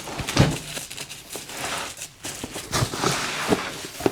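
A delivered package of plastic organizer trays being opened and handled: rustling and crinkling with irregular light clicks and knocks of plastic.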